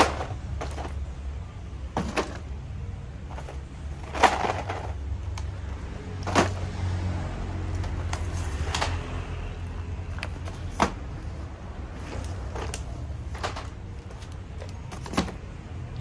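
Stiff plastic blister packaging of toy sets being handled: scattered crinkles and clacks as the carded packs are picked up off a tile floor and put into a plastic bin, over a steady low hum.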